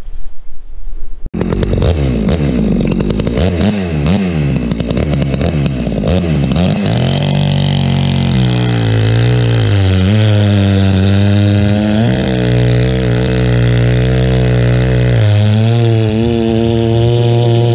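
Holzfforma G660 two-stroke chainsaw with an aftermarket Bulletproof Performance dual-port muffler: it comes in suddenly about a second in, revs up and down for a few seconds, then runs at full throttle through a log, its pitch dipping briefly a few times as the chain loads in the wood. Wind on the microphone before the saw comes in.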